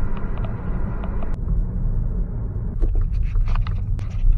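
Car driving: a steady low rumble of road and engine noise with a few faint clicks.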